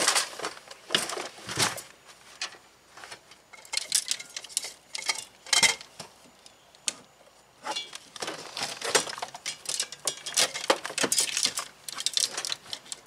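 Irregular knocks, clicks and rattles of gear being shifted and set down in a hatchback's cargo area: fishing rods, a cooler and a bagged flat-pack grill. There is a quieter pause about six seconds in, then busier clatter.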